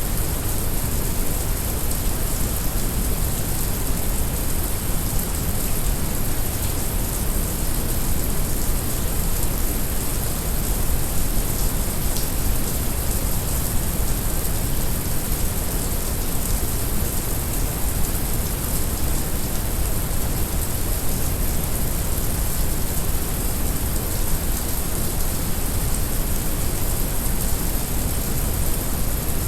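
Heavy rain mixed with brown noise: a steady, unchanging hiss of rainfall over a deep, even noise bed.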